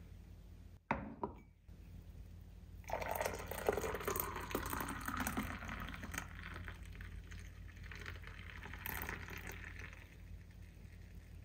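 Water pouring or running into a container for about seven seconds, starting about three seconds in and tapering off near the end. A short sharp knock comes about a second in, and a steady low hum lies underneath.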